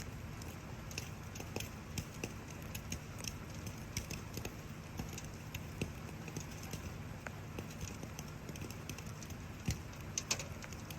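Wood fire crackling with irregular snaps and pops, over a steady hiss of falling rain. Two sharper pops stand out near the end.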